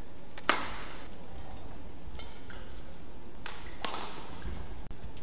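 Badminton rally: rackets striking the shuttlecock. The loudest is a sharp hit about half a second in, likely a smash, followed by several quieter hits about a second or so apart.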